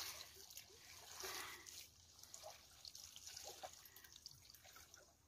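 Faint trickling and dripping of water, with scattered small clicks.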